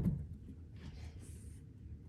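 Two cats scuffling: a dull thump at the start, then a brief airy hiss about a second in.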